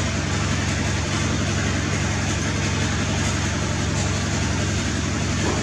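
A steady low engine drone, like a motor idling, running evenly throughout.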